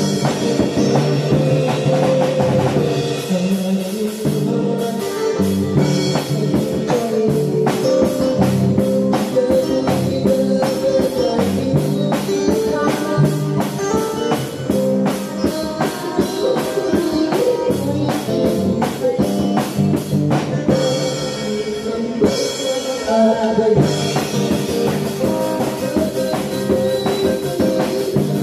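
Live band playing a rock-style song: a drum kit keeps a steady beat with cymbal strokes under an electric guitar, with a man singing. The beat shifts briefly, like a fill, a few seconds in and again about three quarters of the way through.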